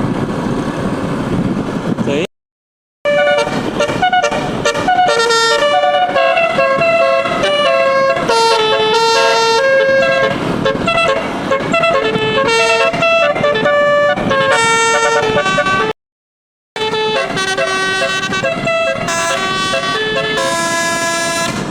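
Bus telolet musical air horn with twelve notes, playing a tune of stepped, held notes. The tune is broken twice by a short silence.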